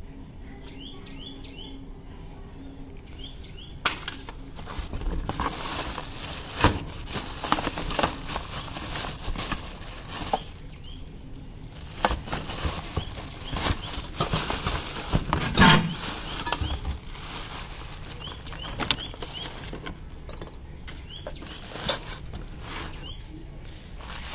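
Plastic bags and cardboard rustling and crinkling as hands rummage through a packing box, with sharp crackles and a few knocks. The rustling starts about four seconds in; before that only small birds chirp in the background.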